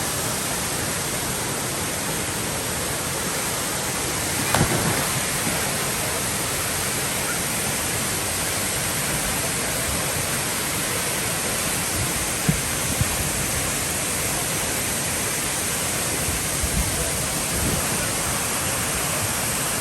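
Waterfall rushing steadily, with a short louder burst about four and a half seconds in and a couple of brief sharp sounds later.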